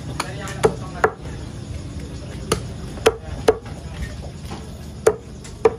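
A meat cleaver chopping raw chicken on a thick round wooden chopping block: about seven sharp chops at uneven intervals.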